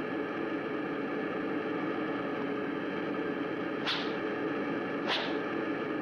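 A steady, noisy cartoon sound effect at an even level, with two short, sharp sounds about four and five seconds in.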